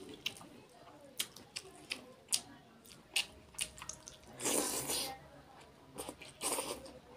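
Close-miked eating of curry and rice by hand: wet lip smacks and chewing clicks, with two longer, louder wet sucking sounds about four and a half and six and a half seconds in.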